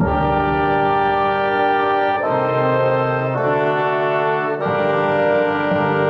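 Orchestral brass section of French horns, trumpets and trombones playing loud sustained chords, the harmony changing about two, three and a half, and four and a half seconds in.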